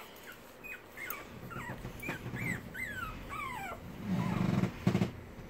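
Dog whimpering: a run of short, high whines, each falling in pitch, about three a second. About four seconds in comes a louder low sound, with a sharp knock near the five-second mark.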